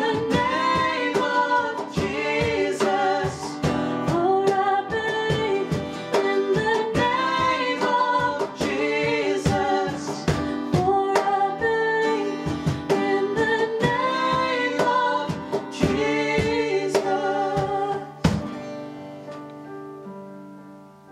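A worship song sung over strummed acoustic guitar, ending on a final strummed chord about eighteen seconds in that is left to ring and fade away.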